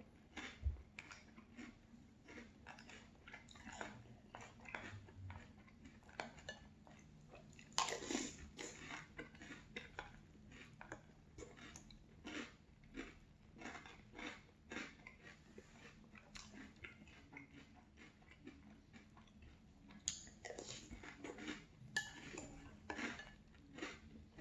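Close-up crunchy chewing of a spoonful of Boo Berry cereal with milk: the dry blueberry-flavoured pieces and marshmallows crackle between the teeth, several crunches a second, with louder bites about eight seconds in and again around twenty to twenty-two seconds.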